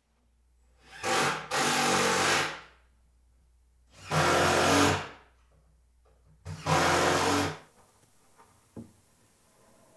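A cordless screwdriver drives three screws through a plywood cleat into a plywood cabinet side, in three runs of about a second each. A short click follows near the end.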